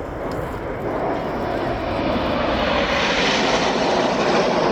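A formation of BAE Hawk jet trainers flying over, the steady roar of their turbofan engines growing steadily louder as the jets approach.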